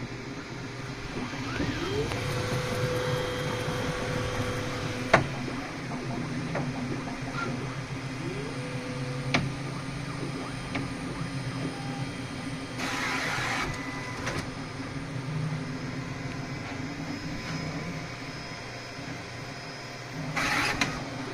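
3D printer's multi-material filament feeder stepper motors running as they try to load filament. Twice the motor whine ramps up in pitch and holds steady for a few seconds, each time ending with a sharp click. Two short hissy bursts come later, over a steady machine hum.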